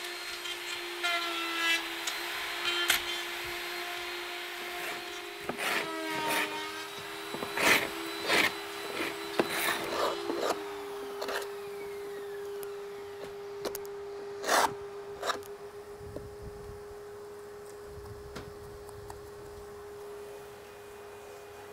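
Power router with a dust-extraction hose cutting a recess for a sash-holder clip into the edge of a timber sash window, its motor whining steadily alongside a second steady motor hum from the extractor. About ten seconds in one motor winds down and stops while the other runs on, with knocks and clatter from the work throughout the first part.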